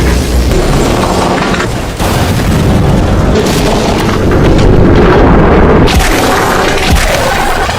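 Loud, dense booming explosion sound effects with heavy rumble, running on with brief dips about two seconds in and near six seconds.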